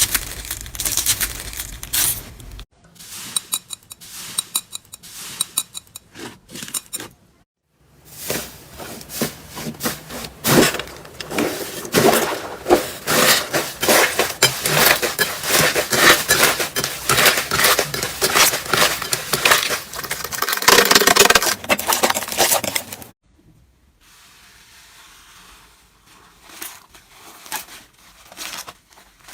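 Slime being pressed and squeezed by hand, giving dense, rapid crackling and popping clicks. It comes in several takes that cut off abruptly, with the longest and loudest stretch in the middle.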